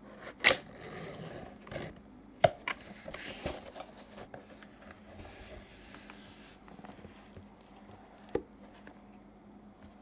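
Cardboard box being opened by hand: sharp knocks and taps of the cardboard, with sliding and rustling as the lid comes off. The loudest knocks fall about half a second in, near two and a half seconds, and near eight and a half seconds.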